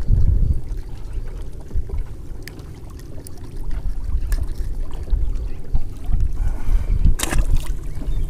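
Wind buffeting the camera's microphone as a low, uneven rumble over open water, with a short splash on the water surface about seven seconds in.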